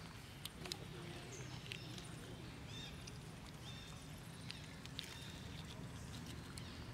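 Faint outdoor ambience: a steady low rumble, a few sharp clicks in the first couple of seconds, and several short high-pitched animal calls later on.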